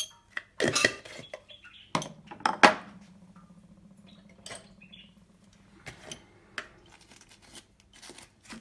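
A spoon and dishes knocking and clinking as spices are spooned into a bowl: a few sharp taps, the loudest about two and a half seconds in, then scattered lighter clicks.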